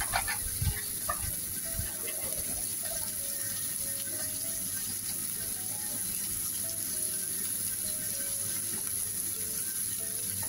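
Sliced onions sizzling steadily in hot oil in an iron karahi, with a few knocks of the utensil in the first two seconds. A soft background melody plays under it.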